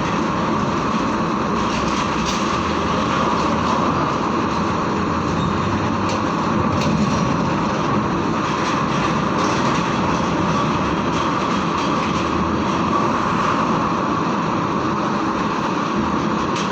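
Heavy diesel trucks running in a steady, dense rumble as they drive off a ferry, with a few faint knocks.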